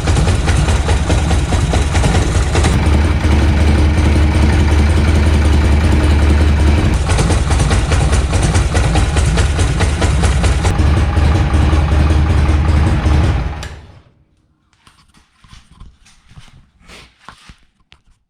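Harley-Davidson Shovelhead V-twin engine running steadily at idle, then shut off about thirteen and a half seconds in, followed by a few faint clicks.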